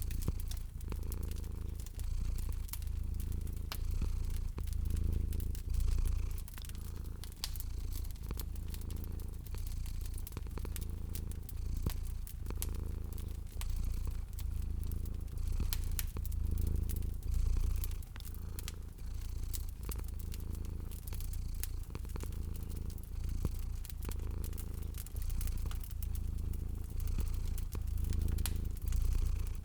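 Domestic cat purring steadily in a low rumble that swells and eases, with a wood fire crackling and popping in sharp scattered clicks over it.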